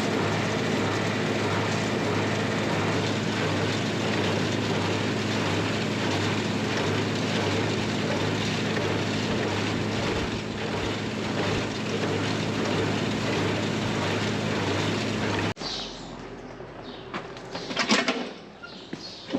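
Farm machinery engine running steadily under load. It cuts off abruptly about three-quarters of the way through, leaving quieter clicks and knocks.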